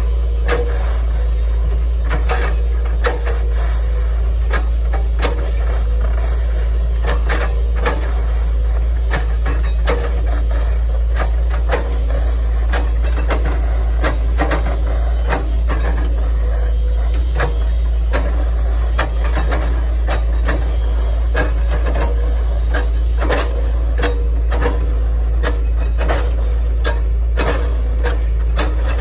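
Hitachi ZX110 MF excavator's diesel engine running with a steady low drone, under frequent irregular cracks and knocks as the bucket chops up an oil palm trunk.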